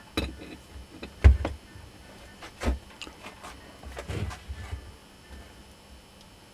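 A few separate knocks and clicks of an opened plastic-bodied angle grinder being handled on a steel workbench, the loudest about a second in and a small cluster around four seconds in. The motor is not running.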